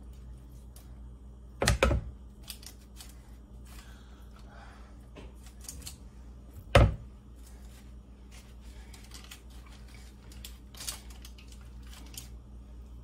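A metal spoon scraping soft roasted butternut squash flesh from its skin, with scattered small clicks and two louder knocks, one about two seconds in and one about seven seconds in, over a low steady hum.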